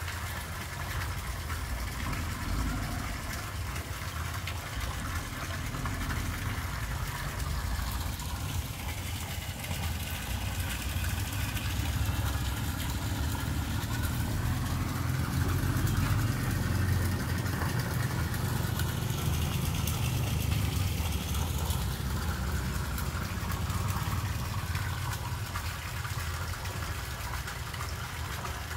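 Steady low rumble with rushing water as water is drained out of a catfish nursery pond to lower its level to 40 cm.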